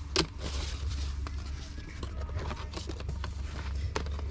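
Items being handled and rummaged through in a storage box: a sharp knock just after the start, a brief rustle of packaging, then scattered light clicks and taps, over a steady low hum.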